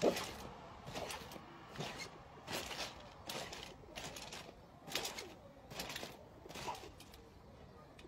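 A dog's paws scratching at a trampoline's fabric mat, a short scrape roughly every second in an uneven series that stops near the end.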